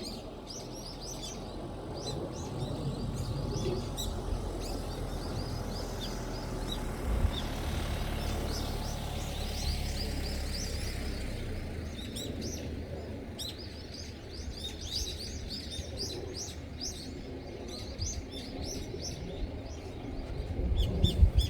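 Small birds chirping and tweeting, many short high chirps overlapping over a steady low rumble of background noise. A few low thumps near the end are the loudest sounds.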